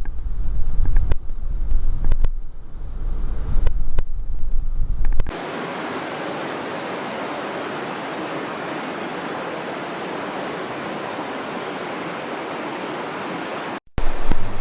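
Wind buffeting the microphone with a low rumble and scattered clicks, then an abrupt change about five seconds in to a steady rush of river water, which cuts off shortly before the end.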